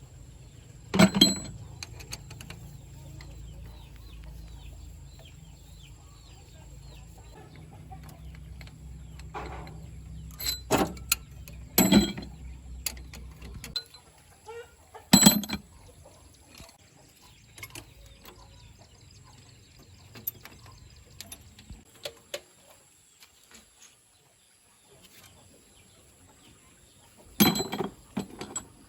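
Chickens clucking, broken by a few loud, sharp knocks. A low steady hum runs underneath and stops about halfway through.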